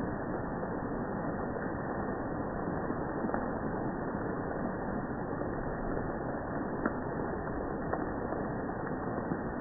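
Steady rush of rain and dripping water, with a few faint ticks of single drops.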